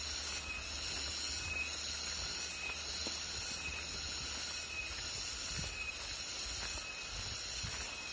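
Steady, high-pitched buzzing of insects, swelling about once a second, over a low rumble.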